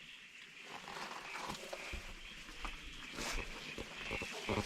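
A hiker's footsteps on wet ground and brush: irregular crunches and knocks, getting busier and louder near the end.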